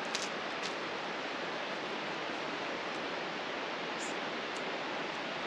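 Steady, even hiss of rushing water from a waterfall, with a couple of faint ticks about two-thirds of the way through.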